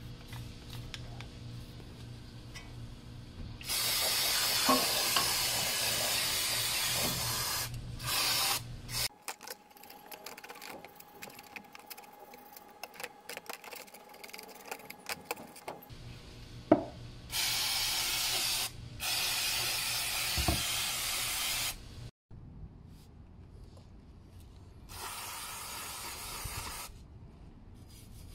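Aerosol brake cleaner sprayed on brake parts in about five bursts, the longest about four seconds, with scraping and clicking of a metal tool on the parts between bursts.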